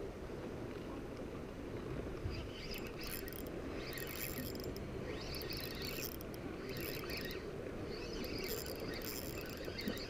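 Spinning reel being cranked in short spurts, a light high whirring that comes and goes from about three seconds in, as a fish is reeled in on a bent rod. A steady low rush of wind and sea runs underneath.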